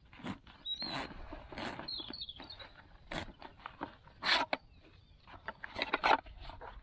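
Canvas pouch being rustled and handled as kit is pulled out of it: a series of short scuffs and rustles, the loudest about four seconds in. Birds chirp faintly in the background.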